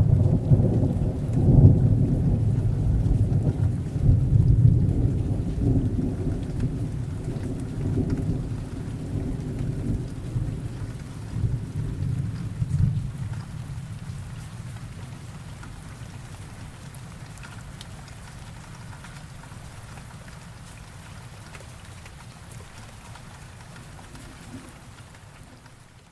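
Thunderstorm: a long roll of thunder over steady rain. The deep rumble is loudest in the first few seconds, swells again twice, then slowly dies away over the second half, leaving the rain hiss.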